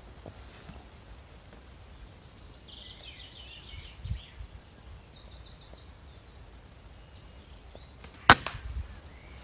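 A single sharp crack of a shot from a BSA Ultra PCP air rifle, aimed at a pigeon in a tree, near the end, followed by a smaller knock. Earlier, a small bird chirps in short repeated phrases.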